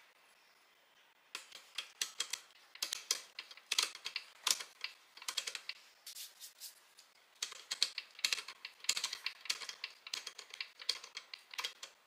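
The Comandante C40 hand grinder's grind-adjustment wheel is being turned by hand, clicking through its settings one step at a time. It gives runs of sharp clicks with short pauses, starting about a second in.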